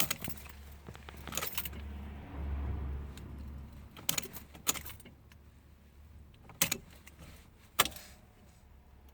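Ignition key and keyring jangling and clicking as the key is worked in the ignition of a 2007 Ford Ranger, with a low hum in the first three seconds; the engine does not start.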